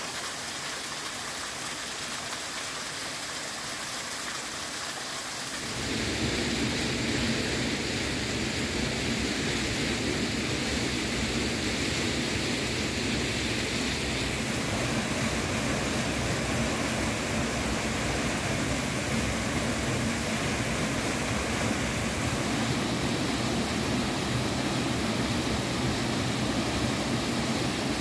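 Waterfall: a steady rush of falling and splashing water, which suddenly becomes louder and deeper about six seconds in.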